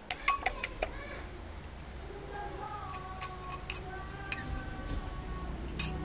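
A metal fork clicking quickly against a small glass bowl as an egg is beaten, stopping about a second in. A few scattered clinks follow as the fork and glass bowl tip the egg into a plastic basin of batter, over a low rumble and a faint voice in the background.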